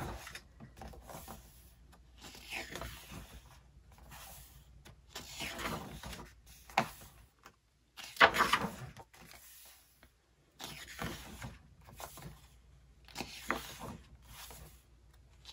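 Pages of a glossy album photobook being turned by hand: a series of paper swishes and rustles, about one every two seconds, the loudest about eight seconds in.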